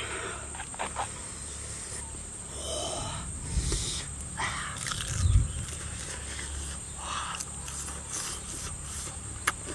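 Close-up sounds of a man eating grilled frog dipped in chili sauce: chewing, lip smacks and scattered clicks. A few short hissing breaths come through pursed lips against the chili heat, and there is a dull thump about halfway through.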